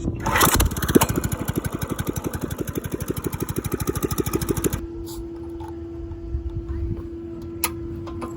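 Go-kart's small engine running on a straight-pipe exhaust with no muffler: a fast, even putter of about eleven pulses a second. About five seconds in it drops to a quieter, steadier idle with a steady hum.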